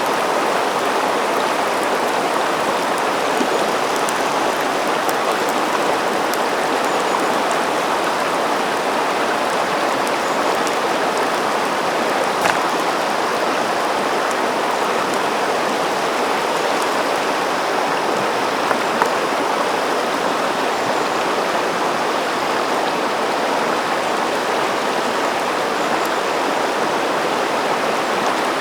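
River water rushing steadily over stones, an even, unbroken flow, with a couple of faint clicks part-way through.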